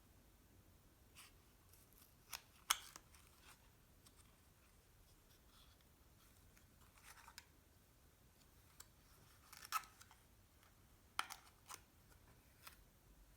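Scattered quiet clicks and short scrapes of small objects being handled, about ten in all, the loudest near three seconds in and near ten seconds in.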